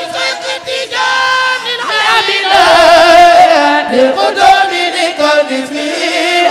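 A chorus of voices chanting an Arabic devotional song, drawing out long notes with a wavering pitch.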